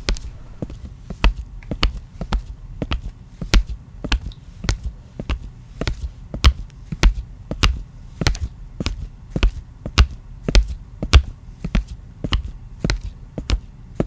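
A long run of sharp knocks, irregular, about two to three a second, each with a low thump.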